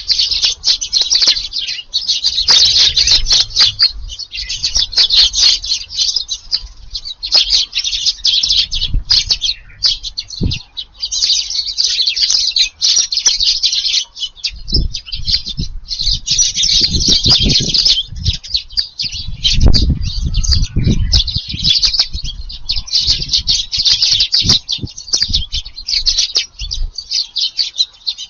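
A crowded flock of Eurasian tree sparrows chirping nonstop at a feeding spot, a dense chatter of many overlapping calls. Low flutters of wingbeats break in now and then, strongest about halfway through and again about two-thirds of the way in.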